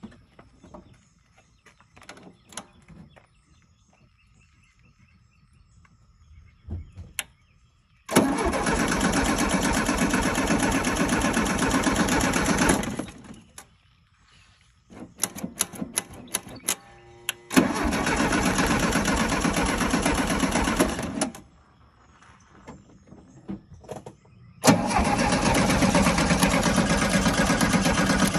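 1973 VW Beetle's air-cooled flat-four engine cranked on the starter three times, about four seconds each, without catching. It won't fire because the ignition coil is giving no spark.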